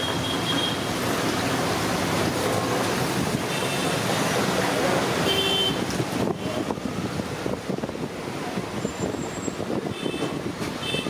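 Hot oil sizzling in a large wok where masala medu vadas are deep-frying, mixed with street traffic noise; the frying turns more crackly from about six seconds in as fresh vadas are dropped into the oil. A few short high beeps sound now and then.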